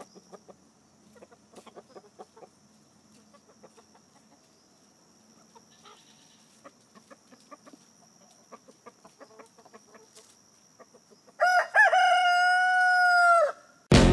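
Rooster crowing once, a loud cock-a-doodle-doo of about two seconds that rises, holds and falls away, after faint scattered clicks and rustles of chickens moving about in dry leaves. Right at the end, loud music cuts in suddenly.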